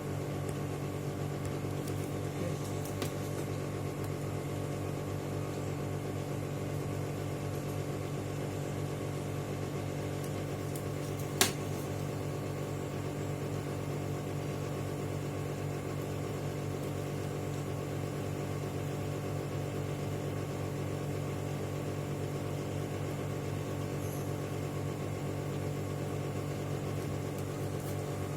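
A steady mechanical hum with one sharp click about eleven and a half seconds in.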